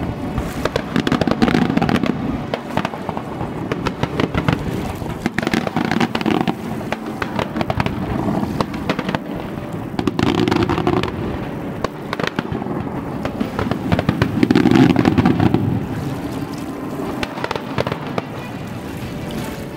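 Fireworks display: a dense run of bangs and crackling from aerial shells bursting, with heavier volleys about a second in, at about the halfway point and again about three-quarters through.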